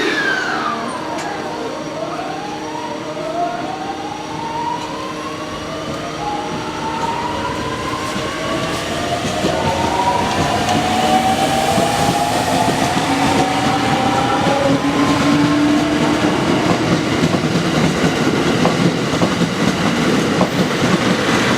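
JR East 209 series 500 electric train pulling away, its GTO VVVF inverter and traction motors sounding a sequence of tones that glide in pitch, mostly rising as it accelerates. From about eight seconds in, the running noise of wheels on rail grows louder, with some clickety-clack.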